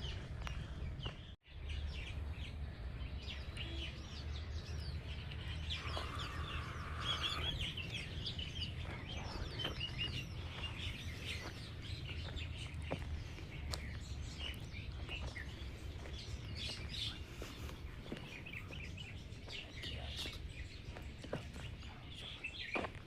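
Small birds chirping and twittering, many short high calls throughout, over a steady low rumble. The sound cuts out for an instant about a second and a half in.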